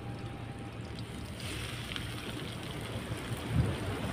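Small fish sizzling as they are dropped into hot oil in a pot over a wood fire; the sizzle swells about a second and a half in, with a low thump near the end.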